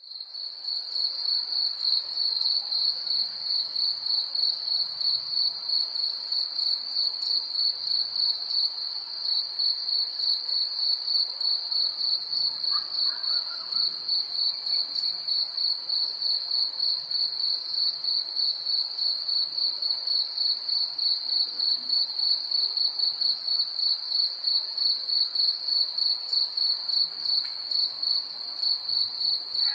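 Crickets chirping in a steady night chorus: a loud, even, rapidly pulsing trill with a fainter, higher chirping over it. It fades in at the very start.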